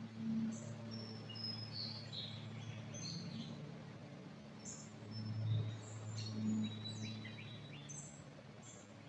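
Small birds chirping and calling in short high notes and brief whistles scattered throughout, over a steady low rumble that swells about halfway through.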